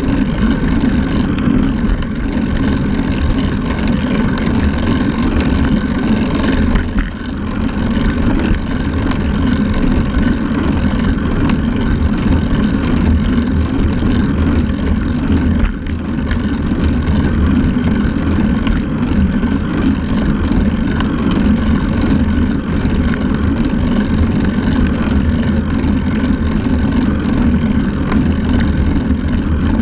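Steady, loud rushing of wind over a handlebar-mounted camera's microphone on a moving road bike, mixed with the hum of the tyres on asphalt, dipping briefly twice.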